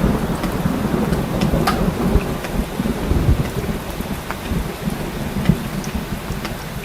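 Heavy rain falling with scattered sharp drops ticking, over a low rumble of rolling thunder that eases off across the few seconds.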